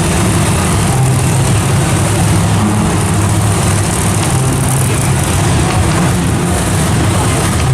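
Monster truck engine running, a steady loud low drone under a wide wash of noise.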